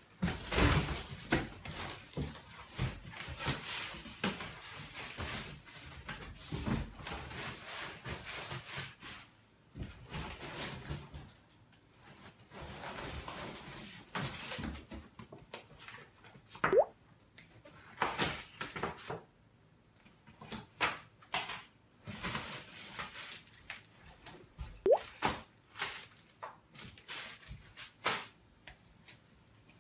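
Irregular rustling and scraping of a cardboard box, packing paper and the branches of an artificial pine Christmas tree being handled and unpacked, with two short squeaks, one midway and one near the end.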